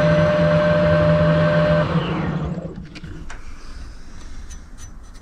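Metal lathe running steadily while facing a cast-iron handwheel in a four-jaw chuck. About two seconds in it is switched off and spins down, its whine falling away, then a few light clicks as the workpiece is handled in the chuck.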